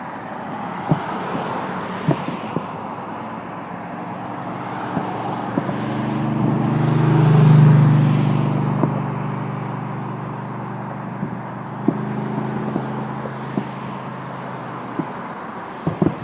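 A motor vehicle passes close by: its engine hum builds, is loudest about halfway through and fades away, over steady outdoor traffic noise. Scattered sharp pops sound throughout.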